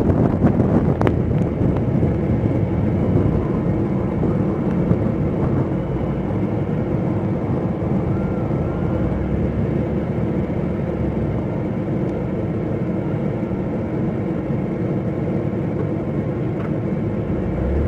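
Car being driven: a steady mix of engine and road noise, with a brief click about a second in.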